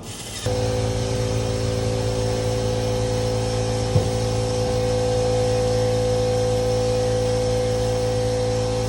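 A motor starts about half a second in and runs at a steady pitch with a constant hum, with a single short click about four seconds in.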